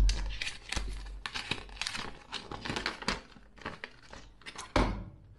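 Paper and thin cardboard rustling and crinkling as Pokémon card inserts are handled and a folded paper card checklist is unfolded. A sharp thump at the start and another shortly before the end.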